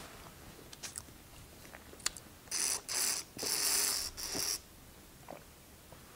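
Water sucked through the straw spout of a plastic water bottle in four hissing, slurping pulls over about two seconds, after a few small clicks as the bottle is handled.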